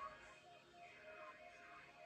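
Near silence, with faint held music notes from the water show's soundtrack.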